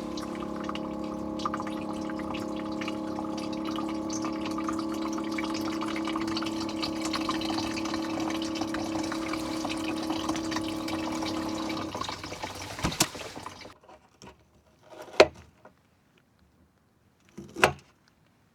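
Water running steadily into a container with a steady hum under it, stopping after about twelve seconds; a few sharp knocks follow.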